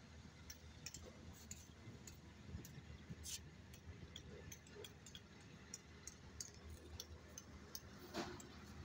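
Near silence: a faint low rumble with scattered light, irregular clicks, and a brief soft rustle about eight seconds in.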